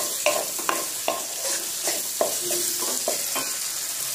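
Green chilli pieces sizzling in hot mustard oil in a metal kadhai, with a flat spatula scraping against the pan as they are stirred, two or three strokes a second. The chillies are being cooked until they go soft for pickle.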